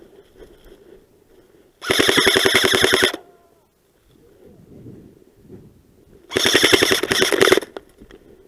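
Airsoft gun firing two full-auto bursts of about a second and a quarter each, the second starting about four and a half seconds after the first, each a rapid, even rattle of shots.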